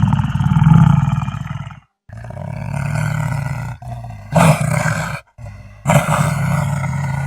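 Wolf growling: a string of long, deep, rumbling growls broken by short pauses, two of them jumping to a sudden louder, harsher peak partway through.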